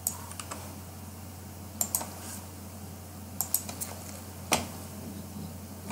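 Computer keyboard keys clicking in a few short, separate clusters over a low steady hum.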